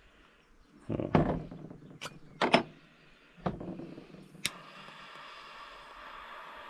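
A butane jet lighter being handled with a few knocks and clicks, then a sharp click about four and a half seconds in as it lights, followed by the steady hiss of its torch flame.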